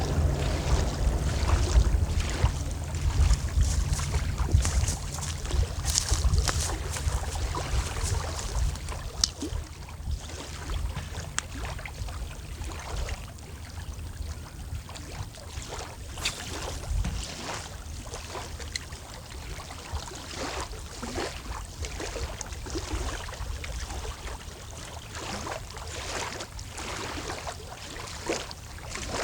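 Wind buffeting the microphone in a low rumble, strongest in the first third, over small waves lapping and slapping against the shore or pilings in many short splashes.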